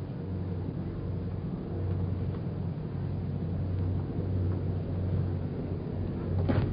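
Steady low hum that swells and fades slowly in loudness, with a sharp knock near the end.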